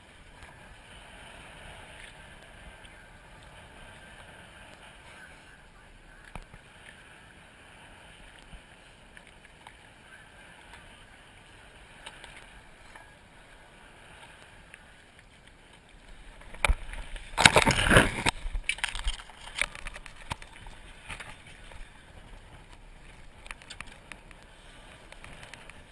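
Steady wash of sea water and wind around a sport-fishing boat, with a loud rough burst lasting about two to three seconds a little past the middle.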